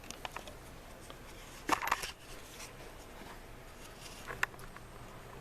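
Faint handling noise: a few light clicks and a brief rustle about two seconds in, over a quiet background.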